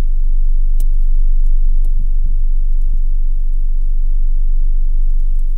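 Car engine idling, heard from inside the cabin as a loud, steady low rumble, with a couple of faint clicks in the first two seconds.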